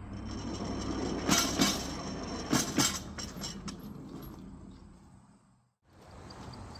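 Miniature railroad snowplow car rolled by hand off the turntable deck, its wheels rumbling along the rails. Two pairs of sharp clacks, about a second and a half in and again near three seconds, as the wheels cross the rail gap between the turntable and the approach track. The rumble then fades.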